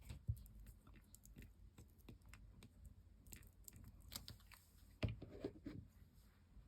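Faint, scattered rustles and light ticks of paper being handled and stuck down, with a louder knock about five seconds in.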